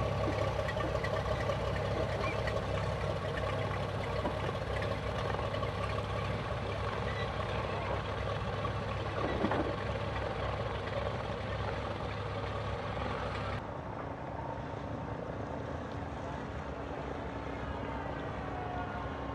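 De Havilland Canada DHC-2 Beaver floatplane's radial engine and propeller running steadily as the plane taxis on the water, heard from a distance as a droning hum. About two-thirds through the sound turns abruptly quieter and duller.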